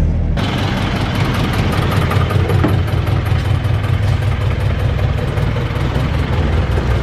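Jeepney engine running with a steady low rumble, heard from inside the open passenger cabin.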